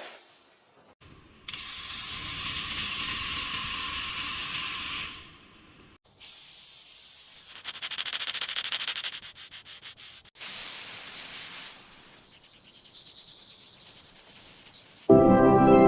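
Sanding on car bodywork, heard in short separate bursts: first a steady rasping hiss lasting a few seconds, then quick back-and-forth strokes, then a brief sharper hiss. Music starts near the end.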